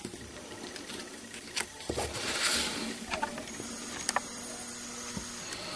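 Small paper cutouts being handled and slid on cardstock: a soft paper rustle about two seconds in, with a few light taps and clicks.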